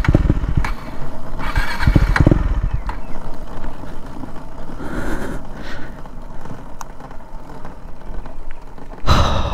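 KTM Duke 390 rolling to a stop with its engine dead, its fuel run out: tyre noise on the road and wind rush, with low rumbling thumps at the start and about two seconds in and a louder rush near the end.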